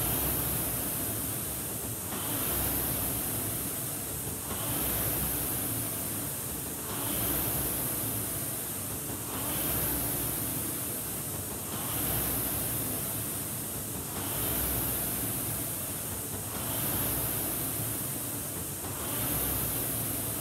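Concept2 indoor rower's air-resistance flywheel whooshing, swelling on each drive and fading on the recovery, about one stroke every two and a half seconds (around 24 strokes a minute).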